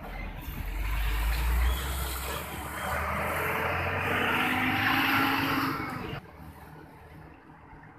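Heavy road traffic passing close by: a truck's low engine rumble, then a loud hiss that stops suddenly just after six seconds.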